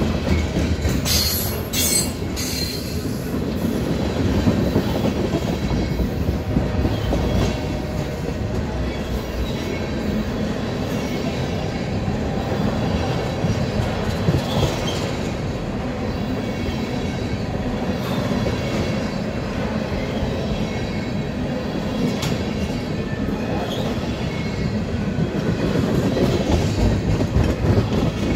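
CSX freight train of tank cars and covered hoppers rolling past close by: a steady rumble of steel wheels on the rails, clicking over the rail joints, with a few brief high wheel squeals, the strongest about one to two seconds in.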